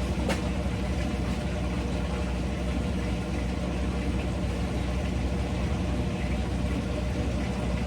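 Steady electric motor hum with several even low tones that does not change, and a single sharp click shortly after the start.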